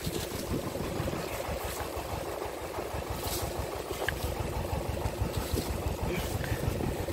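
Ursus C-330 tractor's two-cylinder diesel engine idling steadily with a fast pulsing beat. A few brief scrapes come over it, about three and six seconds in.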